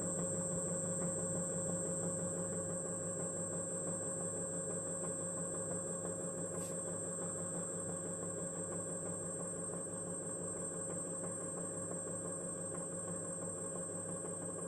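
Brushless hub motor of a Xiaomi M365 electric scooter spinning at a steady speed, a high steady whine over a lower hum, with one brief click about seven seconds in. The motor has just been fitted with new bearings.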